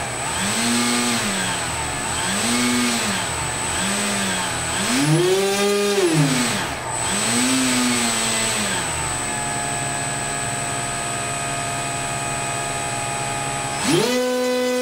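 An 1800 KV NTM brushless prop-drive motor spinning a 7.5-inch propeller through a long shaft extension running in bearings. The whine is throttled up and down in about five short bursts, one reaching higher than the others, then runs steady for several seconds before revving up sharply near the end. The owner says it sounds really good.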